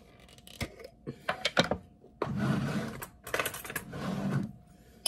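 Glass jar being handled and its screw-top lid twisted off: a few sharp clicks and knocks, then two longer scraping sounds of about a second each.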